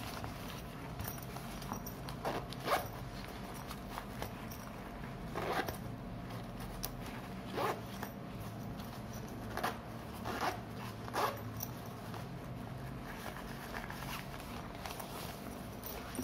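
Zipper of a fabric waist bag being worked in short, irregular rasping strokes, about eight of them, as the bag's compartments are opened and handled.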